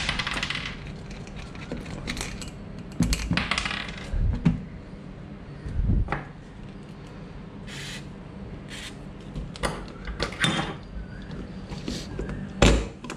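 Metal clinks, taps and knocks of a steel seat mounting bracket and hand tools being worked on a workbench while the bracket is taken off a motorcycle seat base. A brief hiss, like an aerosol spray, comes about eight seconds in.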